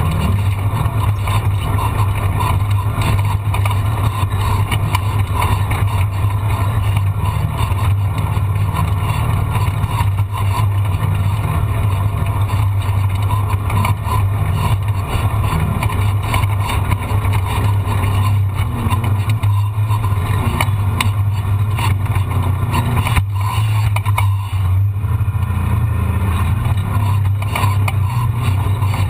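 A vehicle engine running steadily at an even speed, a constant low drone with no change in pitch.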